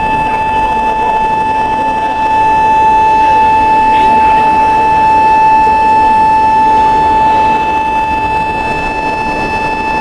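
Induction bar-heating furnace running with a steady, high-pitched whine over factory noise. The whine swells a little for several seconds in the middle.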